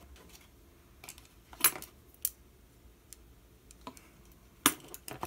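Small hard objects being handled on a bench: a few sharp clicks and light clinks with brief rustling, the loudest about a second and a half in and again near the end.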